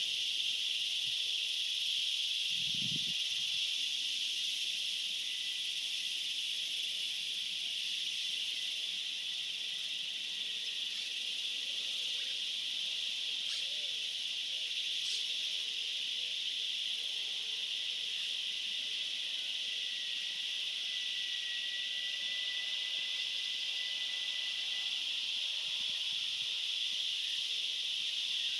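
Steady, continuous high-pitched insect chorus, an unbroken hiss that does not rise or fall, with a brief low thump about three seconds in.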